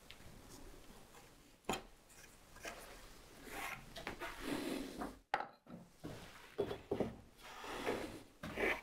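Bench chisel paring a small chamfer on a hardwood furniture leg: a series of short scraping shaves with a sharp click early on. The sound drops out briefly about five seconds in.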